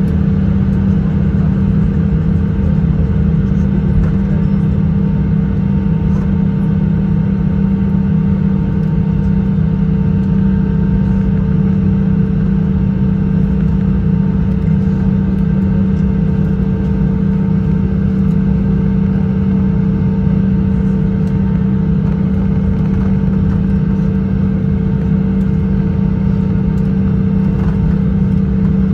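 Steady cabin drone inside an Airbus A319 taxiing, its jet engines at idle: a low hum with a steady tone riding above it.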